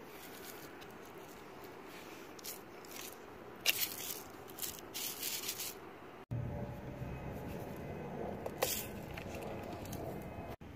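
Short scrapes and rustles as a plastic float-switch counterweight is slid along its rubber-sheathed cable and the cable drags on a concrete floor, over faint steady background noise.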